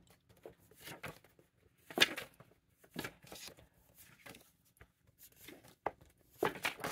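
Small cards being flicked through and pulled from a plastic bin packed with cards: a run of short papery rustles and taps, the loudest about two seconds in and a quick cluster near the end.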